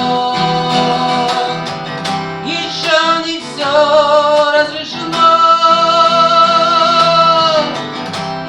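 Acoustic guitar strummed under a man singing long, wavering held notes; the longest starts about five seconds in.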